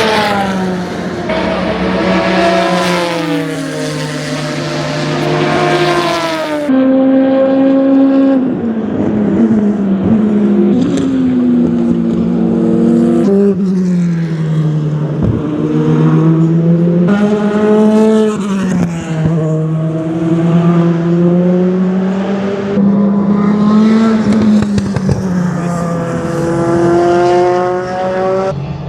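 Endurance race car engines running hard on track, one car after another, each note climbing and falling with gearshifts and passes. The sound changes abruptly several times as one car gives way to the next.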